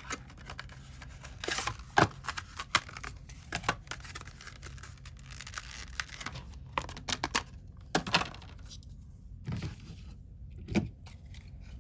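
Scattered small clicks and taps with short crinkling, tearing rustles: hands handling phone parts, tools and packaging on a repair bench.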